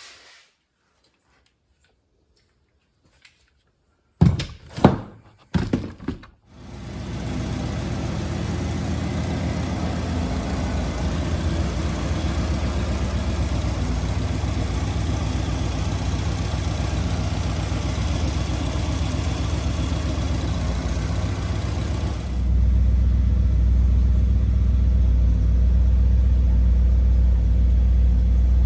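1962 Ford F-100 engine, newly fitted with fuel injection, being started: a few short, loud bursts as it cranks, then it catches and runs steadily. It starts right up. In the last several seconds the low rumble grows louder.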